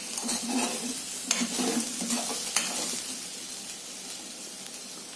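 A metal spoon stirs and scrapes mashed raw banana and onions around a steel pot, with a few sharp scrapes against the pot's side, over a soft sizzle from the hot pan. The stirring fades toward the end.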